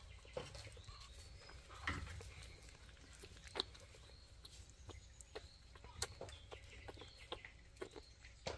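A puppy suckling milk from a feeding bottle: faint, irregular wet clicks and smacks every second or two, with a few faint animal chirps in the background.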